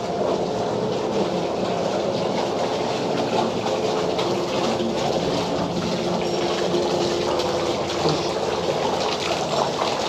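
Steady rushing of running water.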